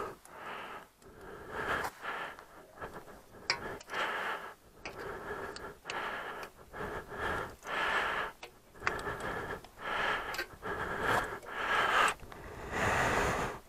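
Screwdriver and spanner undoing the screws of a Ural motorcycle's ignition cover: a run of short scraping turns, roughly one a second, with light clicks between them.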